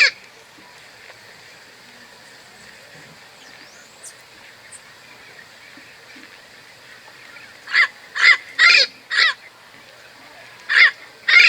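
Parrot squawking: a quick run of four short calls about two-thirds of the way in, then two more near the end, over a faint steady background.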